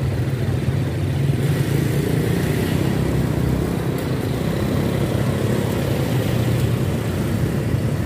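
Small motorcycle engine running steadily while riding down a town street, with wind and road noise that grows a little about a second and a half in.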